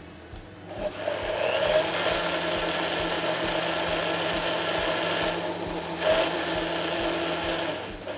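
Electric blender running for about seven seconds, puréeing a pea and mint sauce. It starts about a second in and stops near the end.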